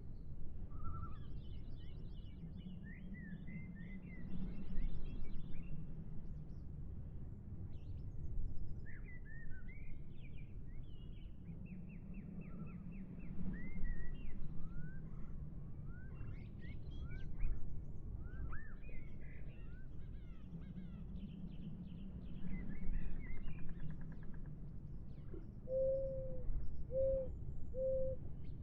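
Several small birds chirping and trilling, with short rising and falling chirps scattered throughout. Under them runs a low rumble that swells three times. Three short low hoots come near the end.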